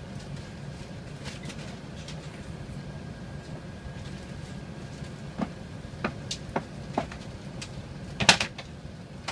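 Steady low cabin hum of an Airbus A380 taxiing, heard from inside the passenger cabin. In the second half come a few scattered clicks and knocks, the loudest a short cluster about eight seconds in.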